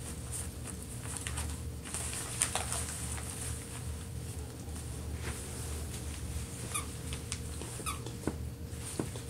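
Small dog chewing a plastic ball toy on torn wrapping paper: scattered crinkles and gnawing clicks, with two short squeaks in the second half.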